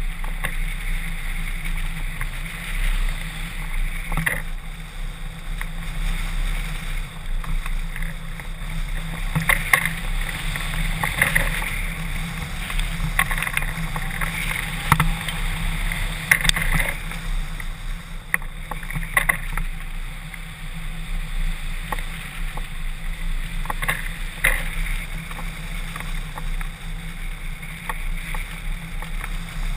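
Airflow buffeting a camera mounted on a hang glider in flight: a steady rush of wind noise on the microphone with a low rumble, rising and falling in gusts, with scattered sharp ticks.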